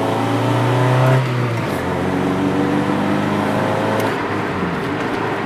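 Car engine and road noise while driving: the engine note rises over the first second and a half, then drops and runs on steadily.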